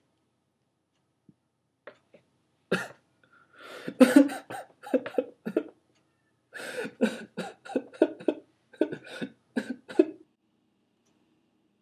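A man coughing into his arm, a long run of harsh coughs in two bouts with a short break between them.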